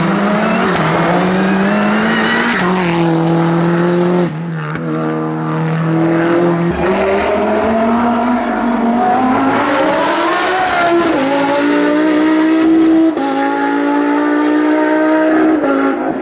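Hillclimb race car engine at full throttle, its revs climbing and then dropping sharply at each upshift, through several gear changes.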